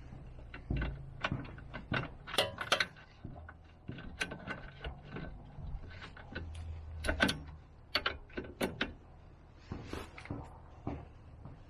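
Irregular clinks and knocks of hand tools and metal parts being handled during suspension-arm work, over a faint low hum.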